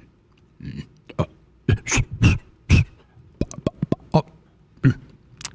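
A puppeteer's voice making short non-word vocal noises for a puppet character, with a quick run of mouth clicks about three and a half seconds in.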